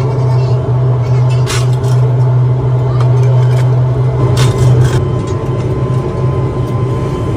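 Steady, loud drone of running foundry machinery with a deep hum, which grows rougher about five seconds in. Brief sharp metal noises cut through it about one and a half and four and a half seconds in.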